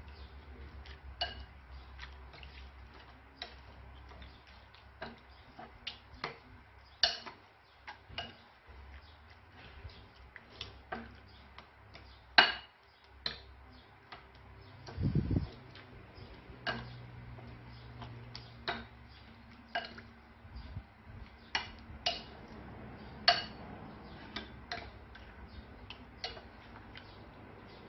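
Scattered small, sharp clicks and taps at irregular spacing, a few of them louder, with a brief low rumble about fifteen seconds in.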